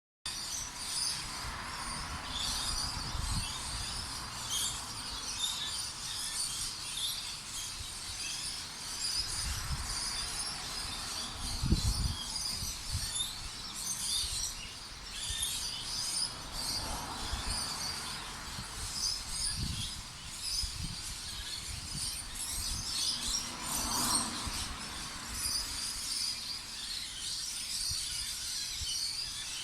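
Small birds chirping and twittering continuously, many short high calls overlapping, with a few low rumbles now and then.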